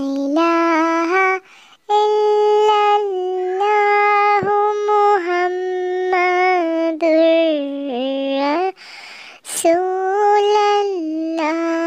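A high voice singing or chanting without accompaniment, in long steady held notes, phrase after phrase with short pauses for breath.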